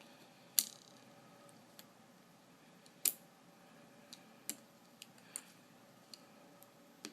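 Sparse sharp clicks and small taps as an iPhone's logic board is pried up and lifted out of its housing, with two louder clicks about half a second and three seconds in and fainter ticks after.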